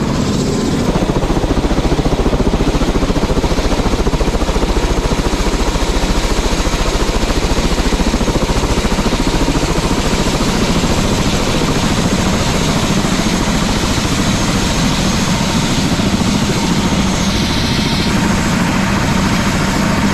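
Turbine engine and main rotor of an Airbus H130 (EC130) light helicopter idling on the ground with the rotor turning. It is a steady whine over a rapid, even beat of the blades, a little louder from about a second in.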